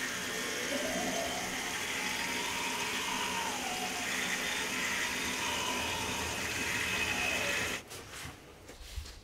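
Water running steadily from a bathroom tap into a sink, stopping abruptly near the end.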